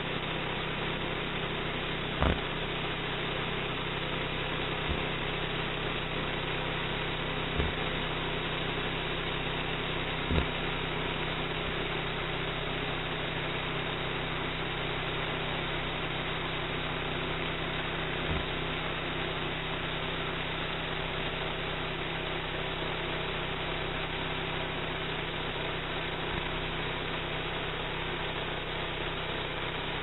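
The homemade band sawmill's 11-horsepower gas engine running at a steady speed, with no change in pitch. A few short, sharp knocks stand out over it, the loudest about two and ten seconds in.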